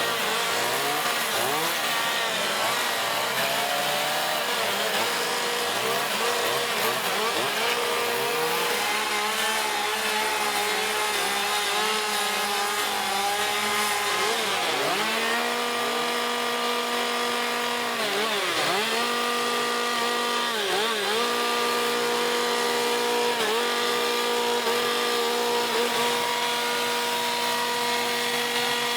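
Several chainsaws running at once, their engines revving up and down as they cut wood. From about halfway through, one saw holds a steady high speed, its pitch dipping briefly a few times as it bites into the wood.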